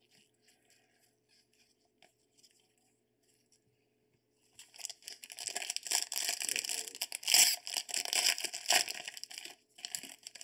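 Plastic wrapper of a trading-card pack being torn open and crinkled by hand. The crackling starts about halfway through, after a few seconds of near quiet, runs for about five seconds and comes back briefly near the end.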